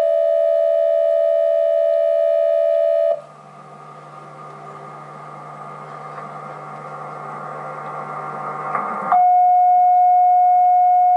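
Electronic emergency-alert (EAS-style) alarm: a loud steady two-tone signal cuts off about three seconds in, giving way to a low droning that slowly swells, and about nine seconds in a single loud steady tone starts.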